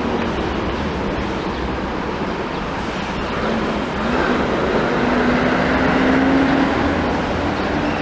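Steady urban traffic noise, with a motor hum that glides up about four seconds in and swells for the next two seconds as a vehicle passes.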